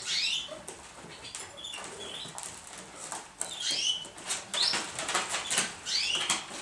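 Domestic pigeons flapping their wings in a loft, with several short high chirps scattered through it.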